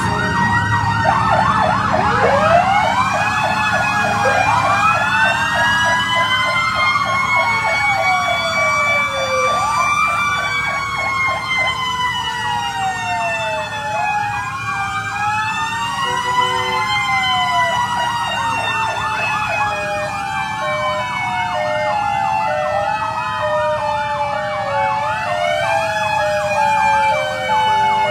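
Several fire truck sirens sounding at once, slow rising-and-falling wails overlapping fast repeating yelps, over the low rumble of the trucks' engines as they roll slowly past.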